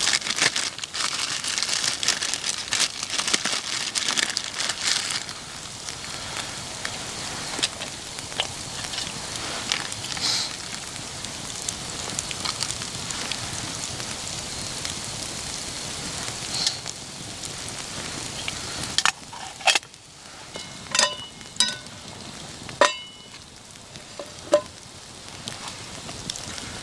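Campfire crackling, densest in the first few seconds and then steadier. Near the end come a few sharp knocks, two of them ringing briefly like metal.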